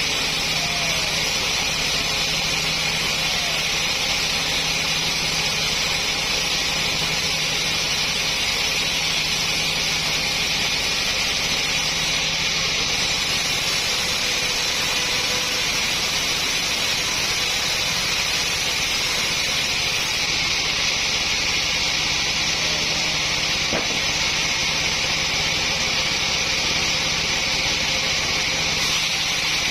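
Sawmill machinery running steadily: a continuous, even mechanical noise with a low hum under it and no pauses.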